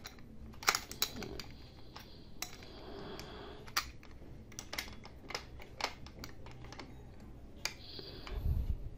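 Pin spanner clicking and scraping on the flange nut as a cutting disc is tightened onto a Stanley SG7100 angle grinder's spindle: irregular light metal and plastic clicks, with a low thump near the end.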